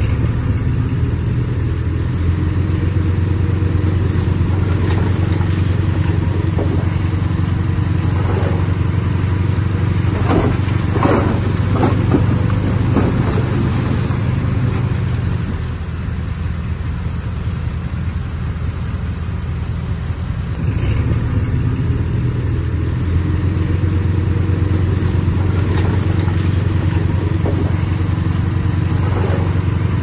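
Heavy-equipment diesel engine running steadily, easing off for several seconds past the middle before picking up again. A few brief squeals cut through around the middle and near the end.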